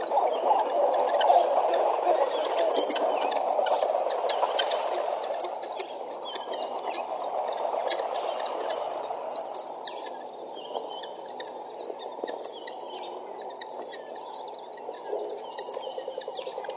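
A flock of guineafowl calling together: a dense, continuous chattering with sharper chirps and clicks over it, loudest in the first few seconds and easing off after.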